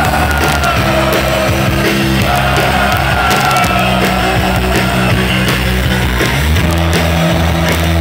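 Live rock band playing: electric guitars, bass guitar and drums, with sustained bass notes under held guitar or vocal lines.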